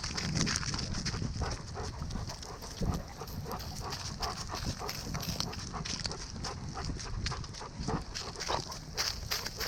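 A dog breathing and panting close to the microphone, with irregular crunching steps over the forest floor.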